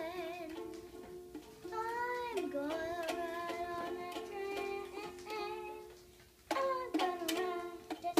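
A small child strumming a pink toy ukulele and singing along. The strumming drops off briefly, then comes back louder near the end.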